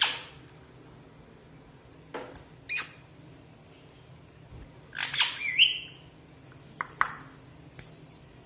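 An agitated pet parrot giving short squawks in scattered bursts, with a quicker cluster of calls about five seconds in.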